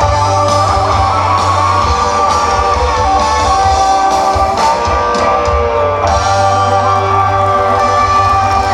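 Live rock band music: electric guitars playing a passage without singing, over bass guitar and drums, loud through the stage PA.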